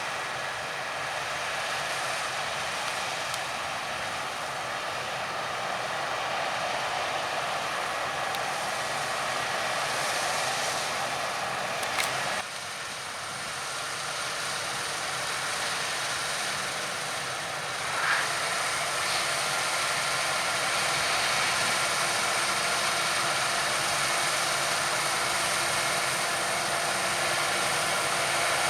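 Harvest machinery running steadily: the engine and working noise of combine harvesters and grain-carting tractors. The sound shifts abruptly twice, about twelve and eighteen seconds in.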